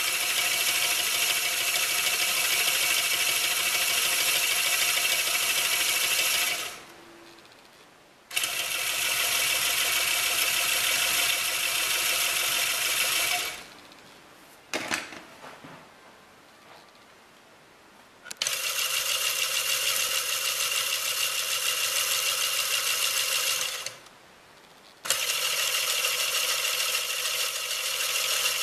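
Lego Technic pin coupling driven by a small Lego electric motor, running with a steady whirring rattle of plastic pins and shafts. It stops and starts again three times: short gaps of a second or two, and one longer gap of about five seconds with a single click in it.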